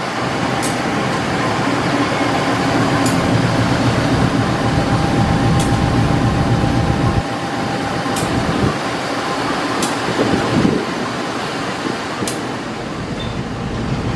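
CC 201 diesel-electric locomotive with its engine running steadily as it rolls slowly past, a thin steady whine over the first half and a faint click every couple of seconds.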